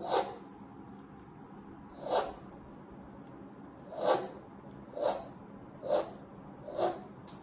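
Six short breathy whooshes made with the mouth, each swelling and fading, imitating the crescendo-decrescendo of an ejection (mid-)systolic heart murmur. The first three come about two seconds apart, the last four about a second apart.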